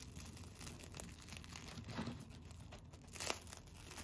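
Hands tearing apart a thick slice of toast with a crisp crust, the crust crackling softly as the crumb pulls apart. There is a louder tear about three seconds in.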